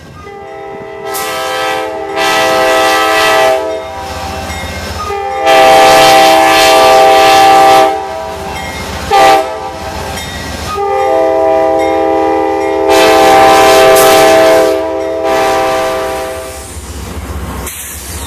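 Amtrak P42DC diesel locomotive's multi-chime air horn blowing the grade-crossing signal: two long blasts, a short one about nine seconds in, then a final long one, over the low rumble of the passing train.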